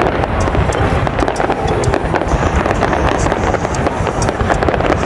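Fireworks display in full swing: a dense, continuous barrage of shell bursts and crackle, loud throughout, with many sharp crackling pops on top.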